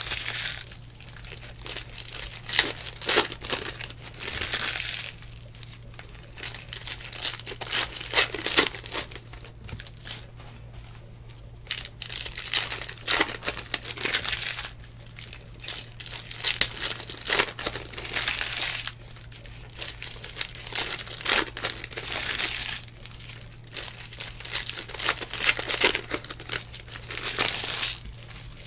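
Foil wrappers of 2019 Panini Legacy Football packs crinkling and being torn open, with trading cards flipped through and slid on a stack, in repeated bursts of rustling. A steady low hum runs underneath.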